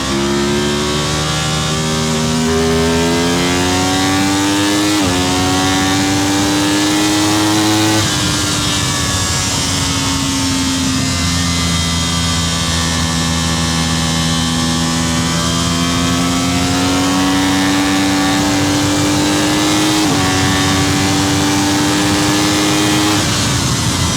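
Superbike engine heard on board while racing, its pitch climbing slowly under acceleration, with sudden drops at gear changes about five seconds in and again near twenty seconds. The engine eases off for a few seconds after the first third and again near the end, over a steady rush of wind noise.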